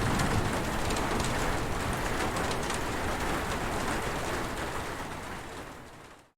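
Heavy rain falling in a steady, even hiss, fading out over the last second or so.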